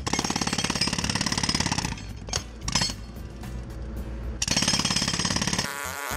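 Jackhammer breaking up a concrete sidewalk slab, running in rapid hammering bursts: about two seconds of hammering, two quick blips, then another run of a little over a second that stops shortly before the end.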